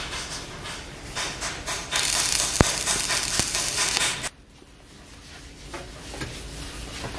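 Welding on a steel tube-to-disc joint: a loud, even hiss for about two seconds that cuts off abruptly, with fainter clatter of metal parts being handled before it.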